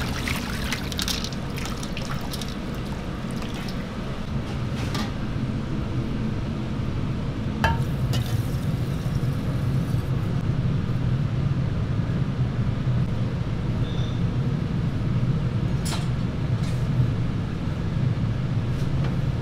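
Cooked noodles being washed by hand in water in a metal strainer, splashing, with a few clinks, then broth poured from a ladle into a bowl, over a steady low kitchen hum.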